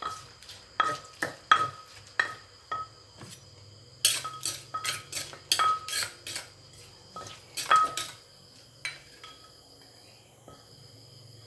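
Wooden pestle and a metal spoon knocking, clinking and scraping inside a clay mortar, mixing a Thai fruit-salad dressing. Irregular sharp knocks with a short ring, busiest about four to six seconds in and again around eight seconds, thinning out near the end.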